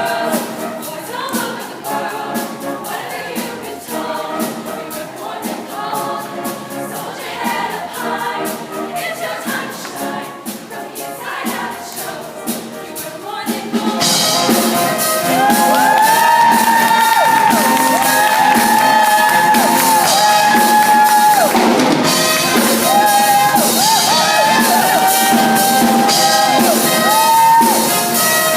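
Girls' choir singing with musical accompaniment. About halfway through it gets much louder and a solo female voice sings long held notes over the group.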